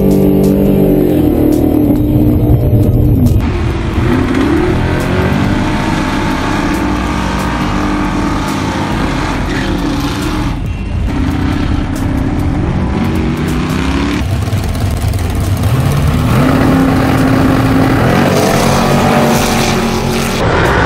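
Dodge Coronet drag car's engine revving up and falling back again and again, first heard from inside the cabin, then from trackside. The sound changes abruptly several times between takes.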